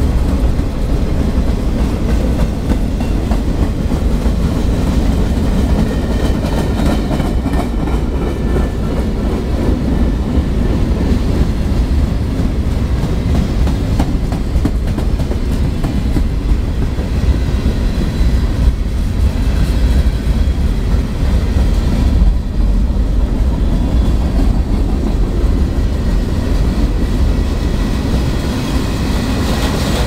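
CSX freight train's cars rolling past steadily: boxcars, covered hoppers and tank cars with their wheels running on the rails. Wind buffets the microphone with a heavy low rumble.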